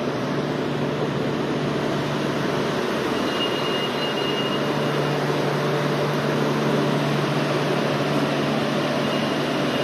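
Steady whirring of cold-store refrigeration fans, with a constant low hum underneath.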